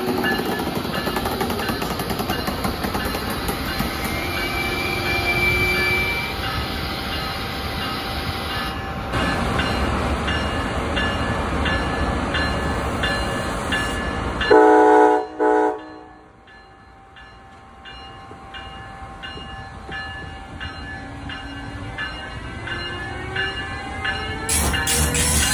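Amtrak passenger train behind a Siemens ACS-64 electric locomotive rolling past, its wheels clicking over rail joints about twice a second. About fifteen seconds in, a multi-tone train horn sounds two short blasts, the loudest sound here.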